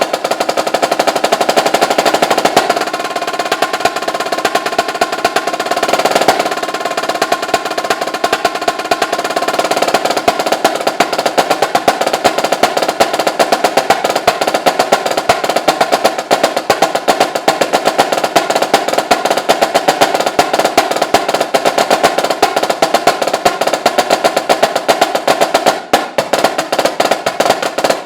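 Solo snare drum played with sticks in fast, dense strokes and rolls, with a brief break about two seconds before the end.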